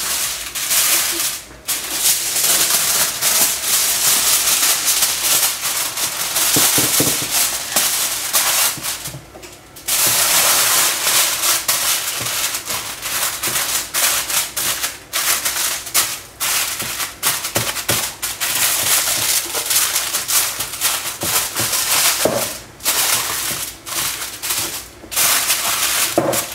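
Aluminium foil crinkling and crackling as it is folded and crimped around a loaf pan by hand. The crackling is nearly continuous, with a short break about a second and a half in and a longer pause around nine seconds in.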